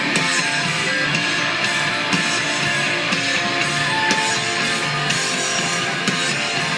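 Music led by an electric guitar: a Fender Stratocaster being strummed and picked.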